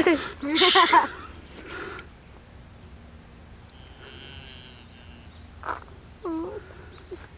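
Young calves bawling: two loud calls in the first second and a shorter one about six seconds in that dips and rises in pitch.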